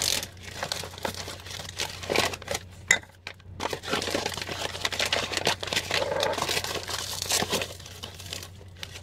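A clear plastic zipper storage bag being handled and opened, crinkling and rustling in irregular bursts.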